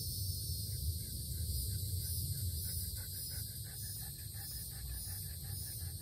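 Chorus of insects singing in the garden: a steady high buzzing that swells and fades in slow waves, over a low rumble. About a second and a half in, a fast repeated chirping joins it, about five chirps a second.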